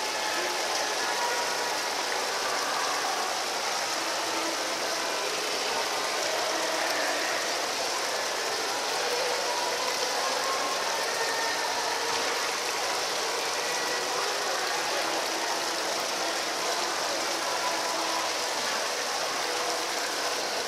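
Water from an indoor rock waterfall fountain splashing and trickling steadily over the stones into its pool, a continuous even rush.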